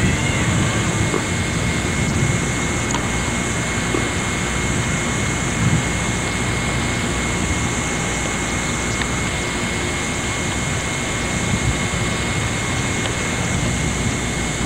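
Steady rumbling vehicle noise of a car in motion, with a faint steady high whine above it.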